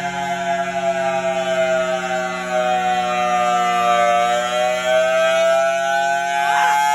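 Federal Signal Thunderbolt tornado siren sounding its steady wail in an outdoor warning siren test, a single pitched tone with many overtones. Its pitch sinks slightly over the first four seconds and then climbs back up, with a steady low hum underneath.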